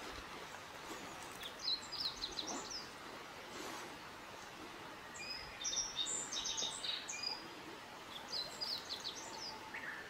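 A small songbird singing three short phrases of quick, high chirping notes, about a second and a half, five seconds and eight seconds in, over a steady background hiss.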